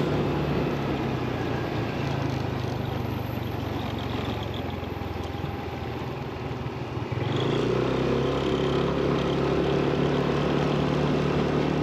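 Vehicle engine and road noise while driving, steady at first. About seven seconds in it steps up to a louder, higher note as the vehicle accelerates.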